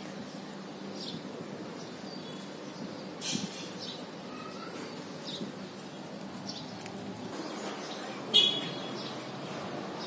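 Caged pet parrots (conures and cockatiels) giving short, scattered chirps, the loudest one about eight seconds in.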